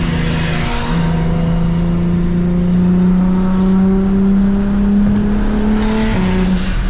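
Single-turbo N54 inline-six of a BMW 335is under way, its engine note climbing slowly through a gear, with short dips in pitch under a second in and about six seconds in. A faint high whistle rises along with the engine note.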